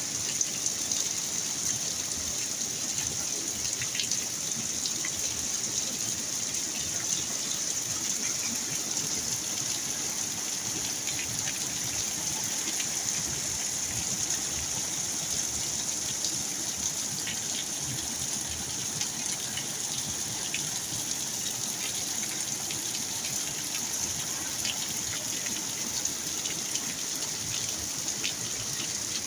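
Heavy rain pouring steadily, with water gushing and scattered drops ticking on surfaces.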